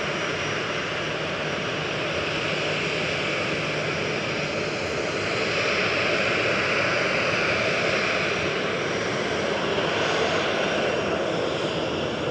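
Jet engines of a Ryanair Boeing 737 running as the airliner taxis and turns on the runway, a steady jet hiss that grows a little louder around the middle.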